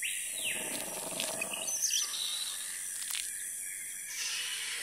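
Jungle ambience sound effect under a channel intro. Bird calls and chirps sound over a steady high hiss, with a low rumble in the first two seconds and a brief sharp click about three seconds in.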